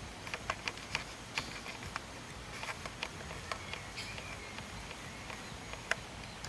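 Irregular light ticks and taps, a few a second, one sharper tap near the end, over a quiet outdoor background.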